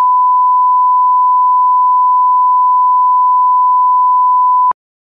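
Broadcast line-up test tone played with colour bars: one steady 1 kHz pitch, loud and unchanging, that cuts off abruptly with a click near the end.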